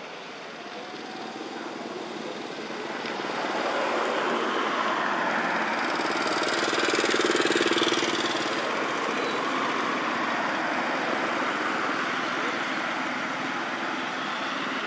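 Motor vehicle noise swelling to a peak about halfway through, then easing off slowly, as a vehicle passes.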